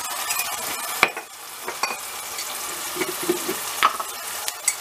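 Chopped onion and tomato frying in oil in a stainless-steel pot, a steady sizzle, with a sharp click about a second in and a few lighter clicks near the end.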